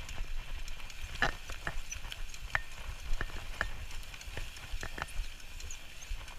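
Mountain bike rolling over bumpy grass: a steady low rumble from the tyres, with irregular sharp clicks and rattles from the bike as it goes over the uneven ground.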